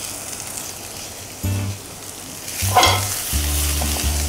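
Sliced lemongrass, galangal, shallots and lime leaves sizzling in hot oil in a frying pan. About three seconds in, a louder scraping sweep as the pan is tossed and the aromatics stirred.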